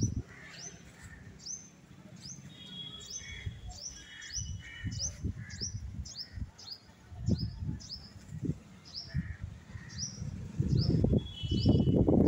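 A small bird calling over and over: short, high, falling chirps at about two a second, with a few higher held notes from time to time. Low rumbling noise underneath that grows loud near the end.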